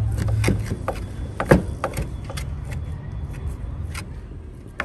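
Chef's knife chopping raw beef on a wooden cutting board: a handful of irregular knocks, the loudest about a second and a half in, thinning out toward the end. A low rumble underneath, strongest in the first second.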